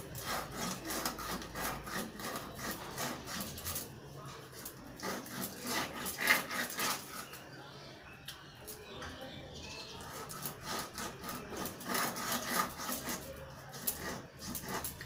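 Knife blade scraping scales off a whole fish in runs of quick, rasping strokes, with a couple of short pauses between runs.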